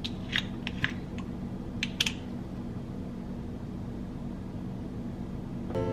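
A quick series of sharp clicks over the first two seconds as the screw cap of a salad-dressing bottle is twisted open, over a steady low hum. Music comes in at the very end.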